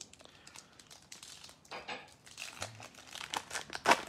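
Foil trading card pack wrapper being torn open and crinkled by hand: scattered crackles at first, busier from about halfway, with one loudest crackle near the end.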